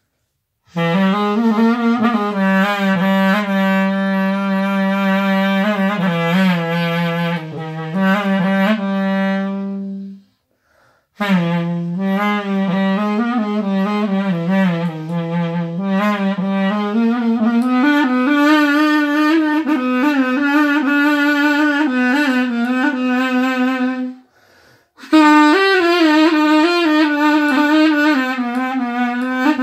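Solo clarinet playing an ornamented melody: long held notes with wavering trills and slides between pitches. The phrases break off twice for a breath, about ten seconds in and again about twenty-four seconds in.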